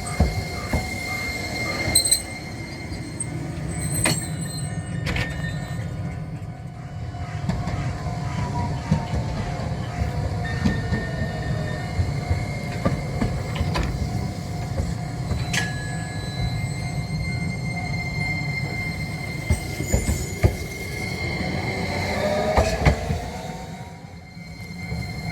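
Electric streetcar running past at close range: a steady low rumble with the wheels clicking over rail joints, high wheel squeal, and a motor whine that glides in pitch.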